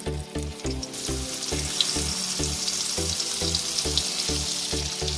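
Blended spice paste frying in hot oil in a wok, a steady sizzling hiss that grows fuller about a second in. Under it runs background music with a steady beat.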